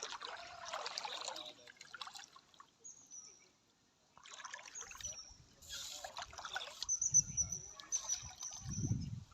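Water splashing and trickling in several short bursts, with a gap of quiet between them. A thin high whistle runs for about two seconds near the end, with low thumps under it.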